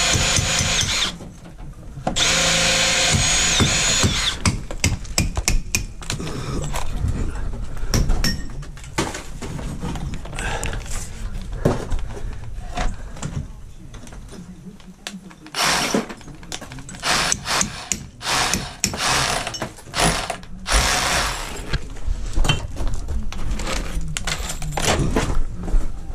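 Cordless drill boring a pilot hole through a pine door-lining board. It runs steadily, stops for about a second about a second in, then runs again until about four seconds in. After that come irregular knocks and clatter, with a few short bursts of drilling.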